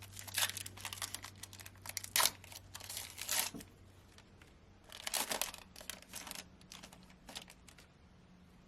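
Plastic foil wrapper of a trading-card pack being torn open and crinkled, in bursts of crackling through the first few seconds, again about five seconds in, then a few light clicks.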